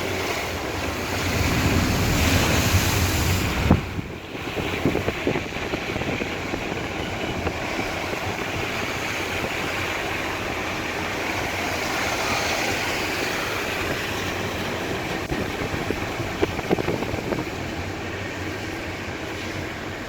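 Car driving slowly through deep floodwater: a steady rush of water washing against the car, with vehicle noise underneath. A louder swell in the first few seconds cuts off suddenly about four seconds in.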